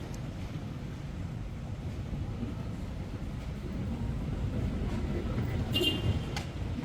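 Steady low rumble of city street traffic, with a short high-pitched squeak near the end.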